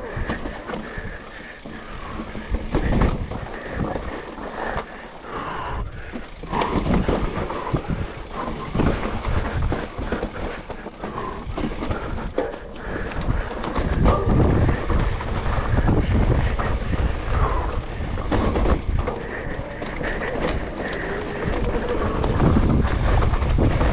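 Electric mountain bike ridden hard over rough trail: frame, chain and suspension clattering and knocking along with tyre noise. The low rumble gets heavier about halfway through.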